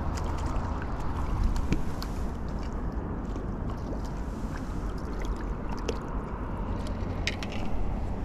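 Steady low rumble of wind on an action camera's microphone worn on the body, with a few light clicks and rustles of handling.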